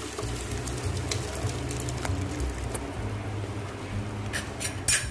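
Boiled toor dal being poured into hot fried masala in a pan, a soft crackling sizzle over a low steady hum. A few metal spoon clicks against the pan, with a cluster of them near the end.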